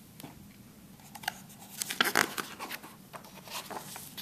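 Pages of a picture book being turned and handled: scattered paper rustles and soft taps, the loudest about two seconds in.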